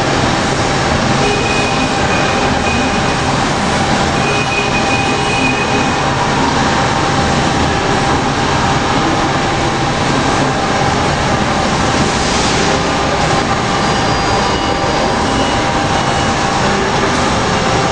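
Loud, steady industrial machinery noise with a constant mid-pitched whine. Brief high squeals come in about a second in and again about four seconds in.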